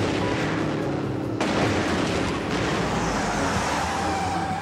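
Movie gunfire: a loud shot right at the start and another about a second and a half in, each trailing into a long noisy rush. A thin high squeal comes in near the end.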